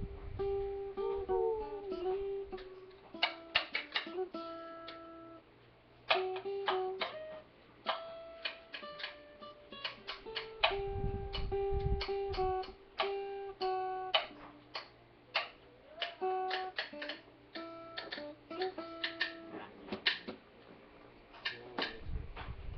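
Acoustic guitar played with a pick, a run of single notes and strummed chords that ring between strokes, with a short lull about five and a half seconds in.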